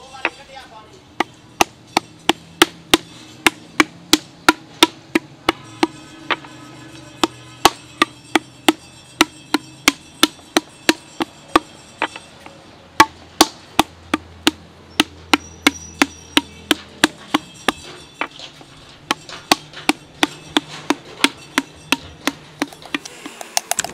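Flat wooden paddle beating the wall of an unfired clay pot to shape it: sharp, even slaps about two to three a second, in runs with short pauses.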